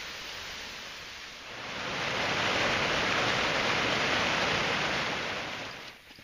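Rushing whitewater of a mountain stream cascading over rocks: a steady rush that swells louder about a second and a half in and drops away sharply near the end.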